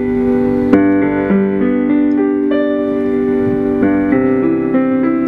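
Piano music: a slow melody over held chords, with a new note struck every half second to a second.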